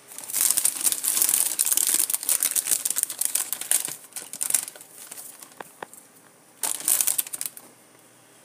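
Crinkling, crackling noise, dense for about four seconds, then a few scattered clicks, then a second short burst near the end.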